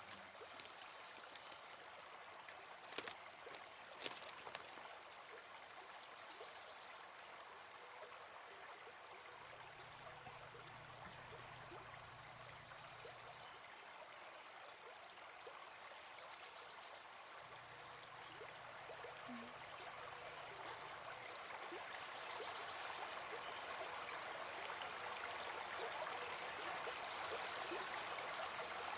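Faint, steady rushing outdoor ambience, growing louder over the last third. A few sharp clicks come about three and four seconds in, and a low hum comes and goes twice in the middle.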